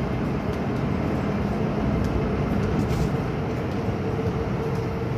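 MTR K-train electric multiple unit running through the station: a steady, loud rumble of wheels and running gear with a thin, steady whine on top.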